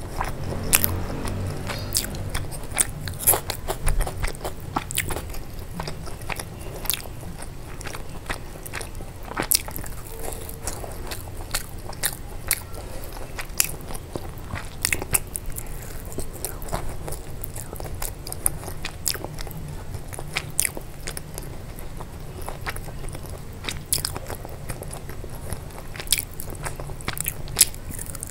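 A person chewing and biting food, with frequent sharp, irregular crunches.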